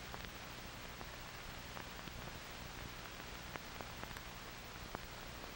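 Steady hiss with a faint low hum and scattered small clicks and pops: the surface noise of an old 1940s film soundtrack, with no voice or music on it.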